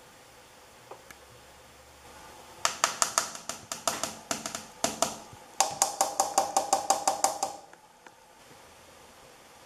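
A rapid run of sharp clicks, about five a second, in two bursts of a few seconds each with a short break between, over a faint steady hiss.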